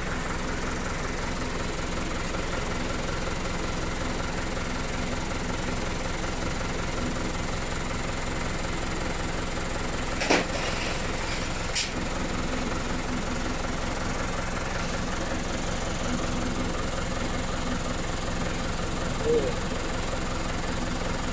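An engine idling steadily, with a sharp knock about ten seconds in and a lighter one about a second and a half later.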